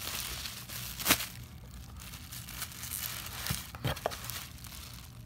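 Bubble wrap being handled and pulled off a boxed effects pedal: crinkling plastic with sharp crackles, the loudest about a second in.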